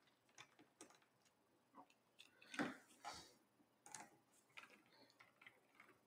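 Faint, scattered clicks of a micro-tip Phillips screwdriver turning a small screw out of a laptop's plastic bottom panel, with a couple of slightly louder ticks about two and a half to three seconds in.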